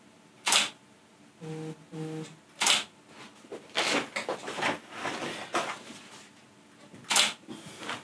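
Canon 750D DSLR shutter firing three times, each a single sharp click, a couple of seconds apart and the last about seven seconds in. Between the later shots a stiff coloured card rustles and scrapes as it is handled.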